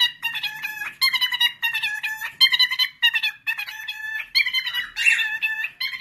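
Cockatiel chirping and warbling in quick, repeated phrases of bright chirps, with short breaks between them.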